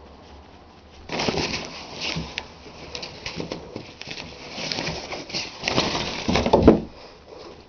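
Shower curtain rustling and crumpling in bursts as a hand grabs and shakes it and a cat bats at it from behind. It starts about a second in and stops near the end.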